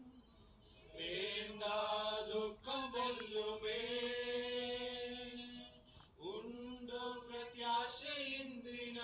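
Men's voices singing a slow hymn into microphones, with long held notes and short pauses for breath about half a second in and again about six seconds in.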